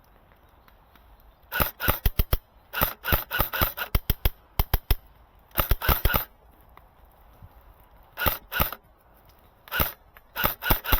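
Airsoft rifle firing short bursts of sharp snapping shots. The bursts begin about a second and a half in and repeat several times, with pauses between them.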